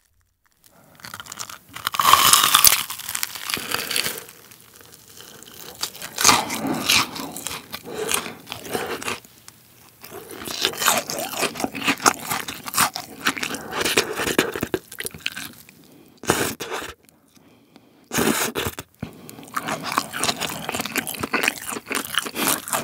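Crunchy bites and chewing of a freshly deep-fried, cheese-filled rolled pork cutlet, its fried breadcrumb crust crackling, picked up close. The loudest crunch is the first bite about two seconds in, and the chewing pauses briefly twice.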